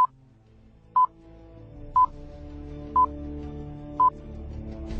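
Short electronic beep, one high tone repeated once a second, six times. Underneath, a low sustained musical drone slowly swells.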